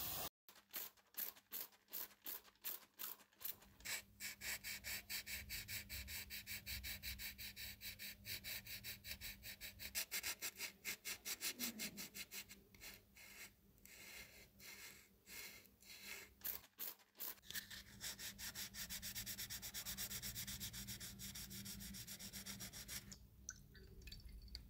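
Sandpaper rubbed by hand over a small primed scale-model car body, in quick back-and-forth strokes several times a second. The rubbing stops near the end.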